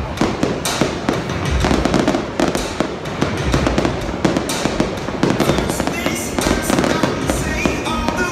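Aerial fireworks shells bursting in quick succession with dense crackling, with music playing along.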